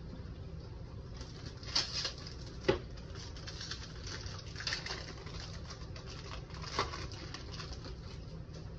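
Soft rustles and light flicks of 2023 Topps baseball cards being slid and shuffled one by one in the hands, a few of them a little louder, over a steady low hum.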